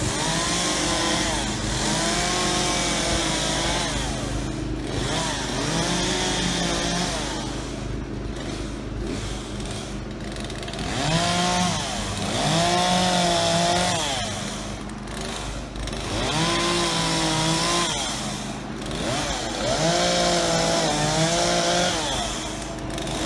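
Chainsaw revving up about five times in bouts of one to three seconds as it cuts through branches, dropping back to idle in between.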